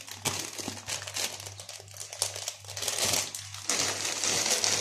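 Crinkling and rustling of lettuce being handled, many small crackles close to the microphone, over a low steady hum.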